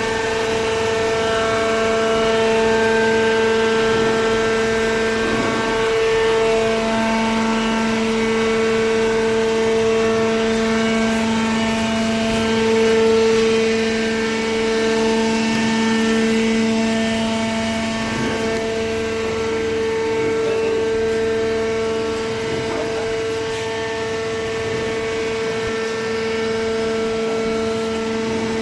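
Horizontal hydraulic cardboard baler running, its motor and hydraulic pump giving a steady hum with a higher whine above it. The lower tone grows stronger about six seconds in and stays so until near the end.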